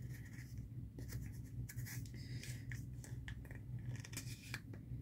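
Faint scraping and light clicks of a small tea-sample tin's lid being fitted and twisted back on by hand.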